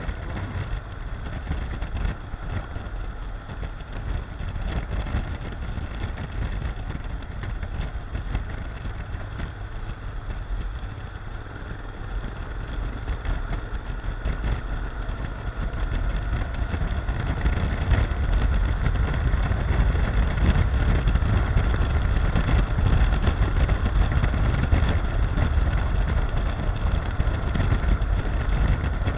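Honda NC750X's parallel-twin engine running at road speed, picked up by a camera mounted on the bike, mixed with a steady rushing noise. It grows louder from about halfway through.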